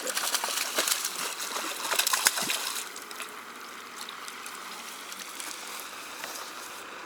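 Water splashing in quick, irregular slaps for about the first three seconds, then the steady rush of a flowing stream.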